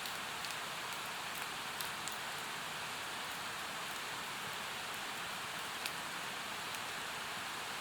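Firewood burning, giving a few sharp, scattered crackles over a steady rushing hiss from a mountain stream.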